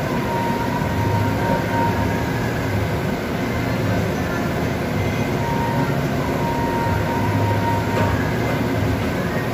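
Steady rumbling machine noise with a faint high whistle coming and going.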